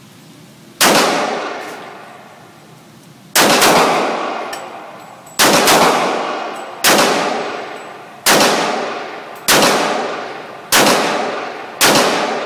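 Eight gunshots from a Sig Sauer 1911 .45 ACP pistol, fired one at a time about one to two and a half seconds apart and coming faster toward the end. Each shot has a long echoing tail from the indoor range.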